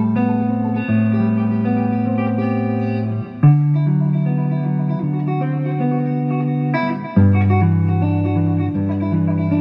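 Solo electric guitar on a blonde Telecaster-style guitar with a clean tone, playing a slow jazz ballad as chords with bass notes that ring on. A fresh chord is struck about a second in, another at about three and a half seconds, and a loud one at about seven seconds.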